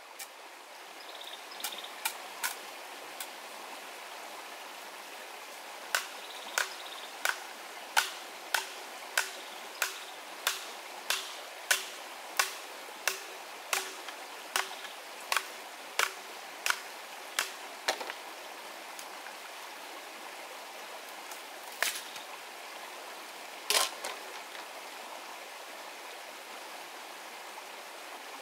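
Machete blade striking the top of a bamboo pole in a steady run of sharp chops, about one and a half a second, with a few scattered strikes before and two after. A stream runs steadily underneath.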